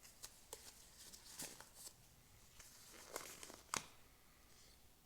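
Faint handling noise: scattered short clicks and rustles, with a sharper click near the end.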